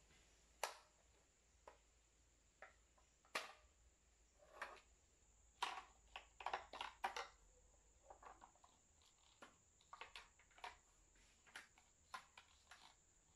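Plastic clicks and knocks from a Toyota Corolla power-folding side mirror's housing and motor unit being handled and fitted together. Short, scattered sharp clicks, busiest about halfway through.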